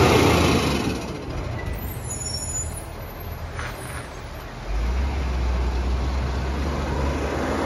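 Iveco Acco side-loader garbage truck's diesel engine running: loud at first, quieter for a few seconds with a short hiss near the middle, then a deep rumble from about five seconds in as the truck pulls away.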